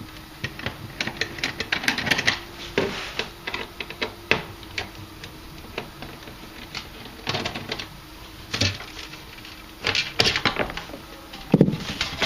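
Irregular clicks and knocks of hands working open a hot tub's control box and handling its cover, in scattered clusters, with a heavier knock near the end.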